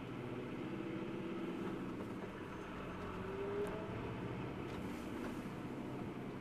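Vehicle engine running steadily in slow stop-and-go traffic, heard from inside the cabin as a low, even drone.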